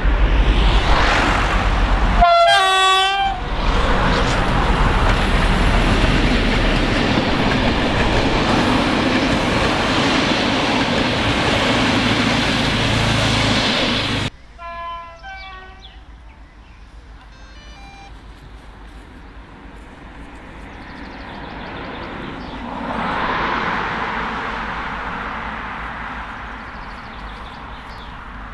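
SU45 diesel locomotive passing close and sounding its horn briefly about two seconds in, then the loud rumble of its passenger coaches going by. The sound cuts off abruptly about halfway, leaving a faint distant horn and quieter traffic noise that swells and fades near the end.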